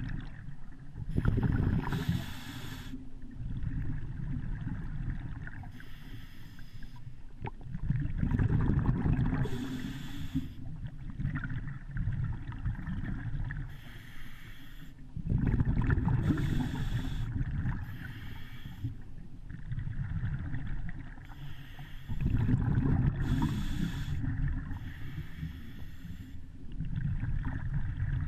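Muffled underwater noise picked up by a camera in a waterproof housing, swelling into louder surges about every seven seconds.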